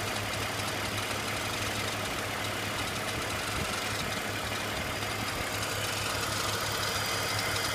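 BMW E46 330Ci's 3.0-litre straight-six idling steadily, with a weird noise coming from the front of the engine. A faint higher whine comes up a little in the last few seconds.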